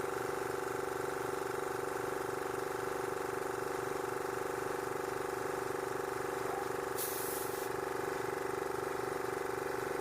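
Tyre inflator running steadily with a fast, even pulsing hum, pumping a patched tyre up towards 40 psi. A brief hiss about seven seconds in.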